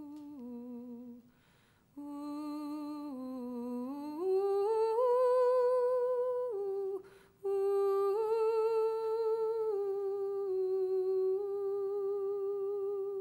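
A single voice humming a slow tune in long held notes with vibrato, breaking off briefly twice, about a second in and again about seven seconds in.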